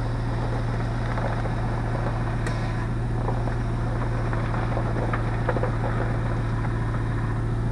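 2005 Chevrolet Tahoe V8 idling steadily, with faint, scattered knocks from the new power steering pump as it works under load. The knock comes only when the steering wheel is turned or the brake pedal is pressed, and it persists even after the pump's valve and the steering gear were replaced.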